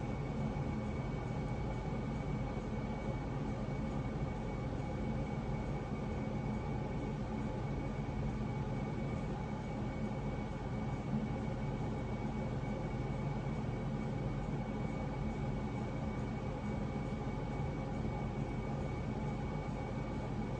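Steady, unchanging background hum of running machinery, with several faint steady tones in it.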